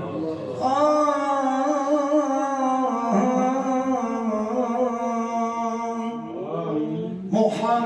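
A man's voice singing an Islamic nasheed in long, ornamented held notes without words, the pitch stepping down about three seconds in and sliding up near the end.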